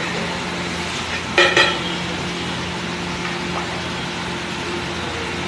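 Pav bhaji gravy sizzling on a large flat griddle as steel ladles stir it, with two sharp metal clinks from the ladles about a second and a half in.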